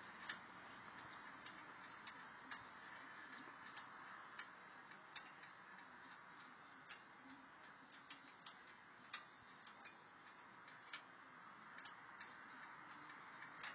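Near silence: a faint steady hiss with many scattered, irregular small clicks, a few of them louder.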